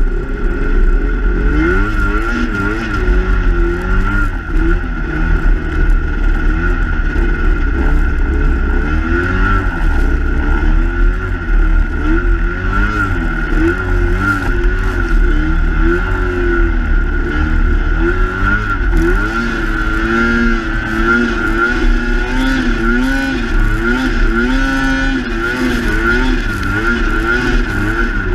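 Snowmobile engine running hard in deep powder, its pitch constantly rising and falling as the throttle works, over a steady high whine.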